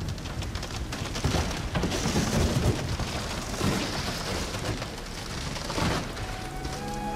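Storm sound effect: a continuous rush of rain and rough sea with several heavier rumbling surges, and crackling throughout. Music with long held notes comes in near the end.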